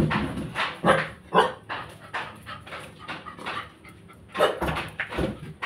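A dog barking over and over, about two barks a second, with a short pause about four seconds in.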